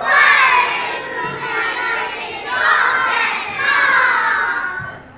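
A group of young children singing together in unison, in long held phrases that drop away shortly before the end.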